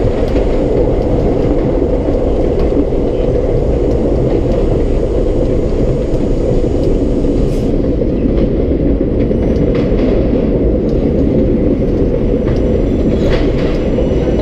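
R32 subway car running on the line, heard from inside the car: a loud, steady rumble of wheels on the rails, with a few brief clicks about halfway through and near the end.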